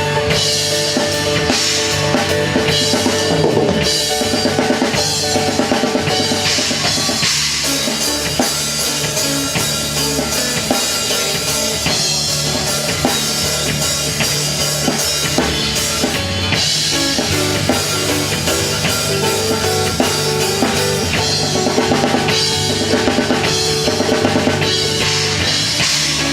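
A band playing, with the drum kit loudest: bass drum and snare keep a steady beat under sustained pitched instruments.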